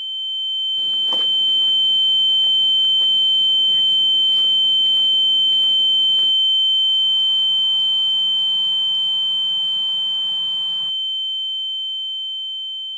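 Ear-ringing sound effect: a loud, steady, high-pitched ringing tone with a fainter lower tone beneath it. It fades in over the first couple of seconds and slowly dies away toward the end, over faint muffled background noise, suggesting a dazed character after a blow.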